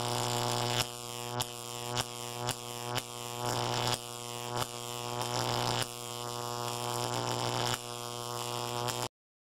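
Electric buzzing sound effect: a steady, deep hum broken by sudden jolts every half second to two seconds, then cutting off abruptly near the end.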